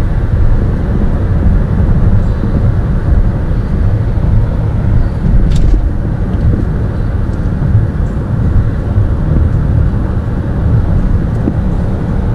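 Steady low road and engine rumble inside a car's cabin while driving at highway speed, with one short click about halfway through.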